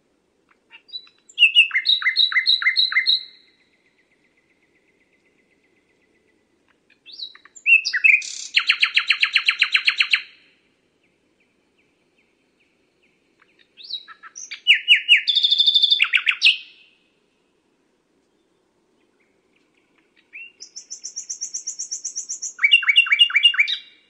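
Common nightingale singing: four separate song phrases a few seconds apart, each built from fast runs of loud repeated notes. The last phrase opens with a high, thin series before its loud run.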